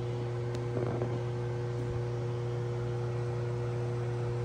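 A steady low electrical hum with two faint steady tones above it and a background hiss, unchanging throughout, with a faint click about half a second in.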